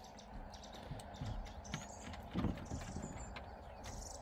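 Faint, scattered taps and soft knocks of dogs' paws and claws on a slatted wooden kennel deck as the dogs move about, with a louder knock about halfway through.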